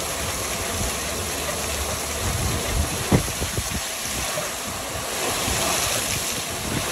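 Steady city street noise, an even wash of traffic and outdoor hum, with a short knock about three seconds in.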